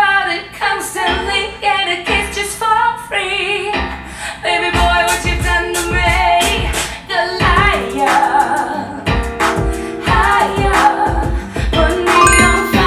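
Pop song with a female singer played back over car audio speakers for a listening test. The bass and drum beat comes in strongly about a third of the way through.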